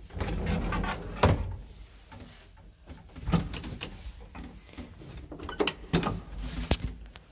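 Sliding doors of an old passenger lift being worked: a series of sharp knocks and clicks, the loudest about a second in and several more near the end.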